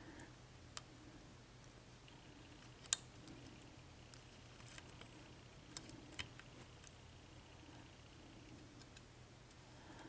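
Faint, scattered metallic clicks of a lock pick working the pin stacks of a Schlage six-pin cylinder lock under light tension, about half a dozen in all, the sharpest about three seconds in.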